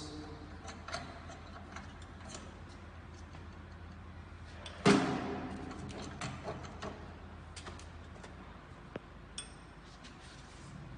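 Scattered light clicks and taps from a manual screen printing press's screen frame and clamps being handled and adjusted, with one loud knock about five seconds in that rings briefly. A low steady hum runs underneath.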